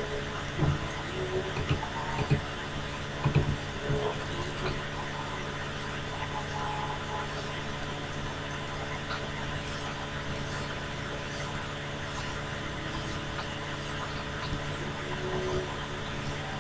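Steady mechanical hum, with a few soft knocks in the first four seconds.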